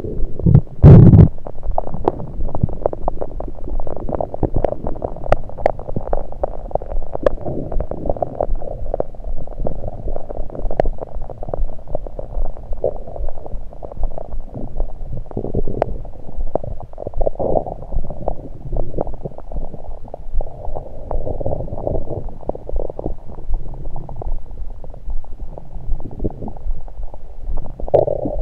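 Human stomach gurgling, heard through an electronic stethoscope on the abdomen: continuous irregular gurgles and crackles with a loud burst about a second in.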